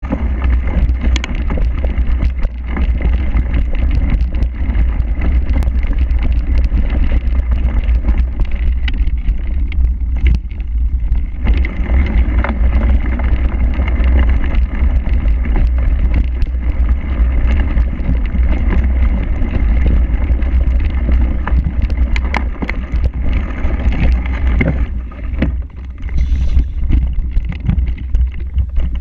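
Heavy wind rumble on the microphone of an action camera riding on a cyclocross bike at race speed, with constant rattles and knocks from the bike over rough, muddy ground and tyres on dirt.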